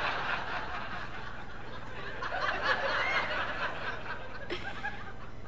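Audience laughing in a comedy club. The laughter swells a second time about two and a half seconds in, then dies away near the end.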